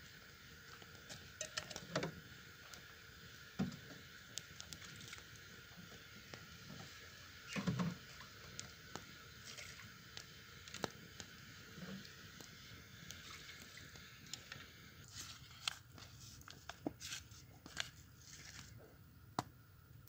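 Wood campfire crackling, with irregular sharp pops and snaps over a faint steady hiss. A few soft low thumps, the loudest about eight seconds in.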